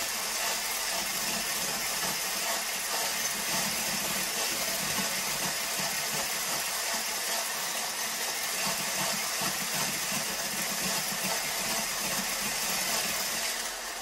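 Electric hand mixer with a whisk attachment running steadily in a glass jar, whipping stiff, still sticky shea butter with liquid oil into a whipped body butter.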